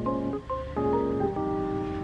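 Background music: an instrumental vlog track with a light melody of short, steady notes changing several times a second over a low bass.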